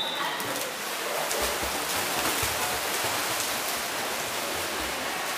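Steady splashing and churning water from water polo players swimming and wrestling in an indoor pool, with echoing pool-hall noise.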